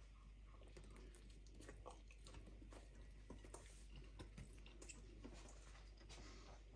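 Faint chewing of a bite of sausage sandwich in barbecue sauce, heard as a scatter of small soft clicks.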